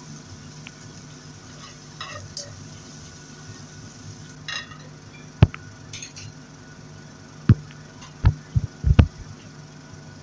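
Kitchenware being handled: a frying pan and dishes give a few sharp clinks and knocks, clustered in the second half, with some faint scraping earlier, over a steady low hum.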